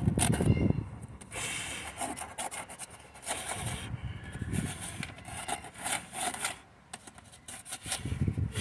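Hard plastic rubbing and scraping in irregular strokes as the Honda Element's instrument cluster housing is handled and worked at from behind, around its bulb sockets. The strokes ease off briefly about seven seconds in.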